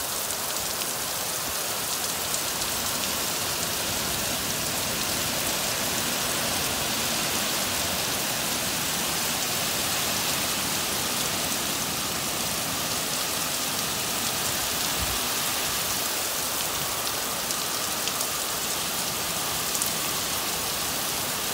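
Heavy rain pouring down steadily onto concrete and bare ground, a dense, even hiss.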